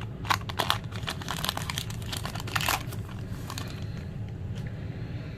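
Foil wrapper of a Pokémon booster pack crinkling and crackling as it is torn open and handled, busiest for about the first three seconds and then thinning out over a low steady hum.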